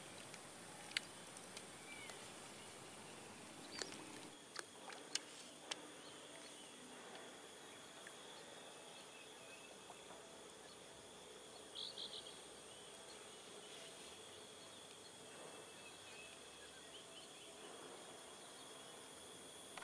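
Faint outdoor ambience: a steady high insect drone, with a few sharp clicks in the first six seconds and a brief chirp about twelve seconds in.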